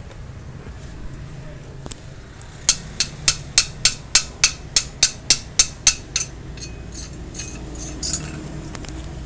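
Hammer knocking slag off a fresh stick-weld bead on thin steel box section: a run of about a dozen sharp metallic taps, about three a second, starting a few seconds in, followed by a few lighter taps.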